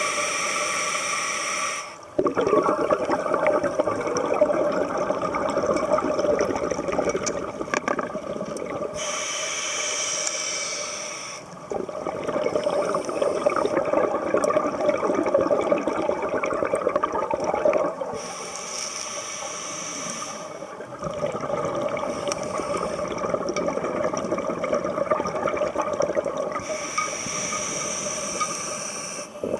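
Scuba diver breathing through a regulator: a hissing inhale of about two seconds, then a long crackling rush of exhaled bubbles, repeating about every nine seconds, four breaths in all.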